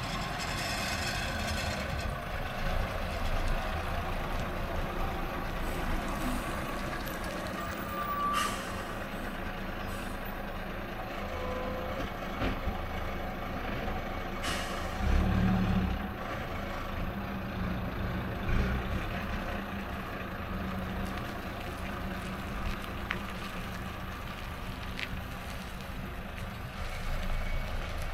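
Vintage IFA H6B bus's six-cylinder diesel engine running at low speed as the bus manoeuvres, with a louder surge of engine sound about halfway through and a few brief sharp sounds, such as air-brake hisses.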